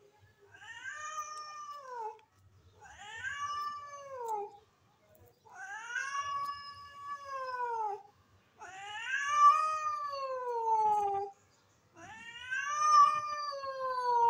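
Hungry stray cat meowing for food: five long, drawn-out meows about a second apart, each rising then falling in pitch, the later ones the loudest.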